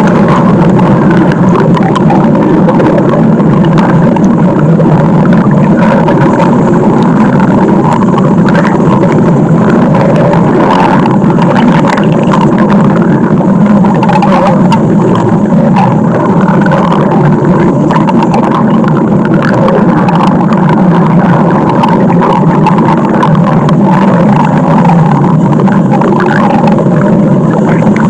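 Stomach growling, loud and continuous without any pause.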